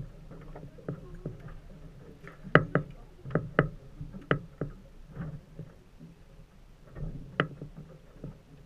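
Water lapping against an aluminium fishing boat's hull, with a string of irregular sharp knocks and taps on the metal boat, most of them bunched together a few seconds in and one more near the end.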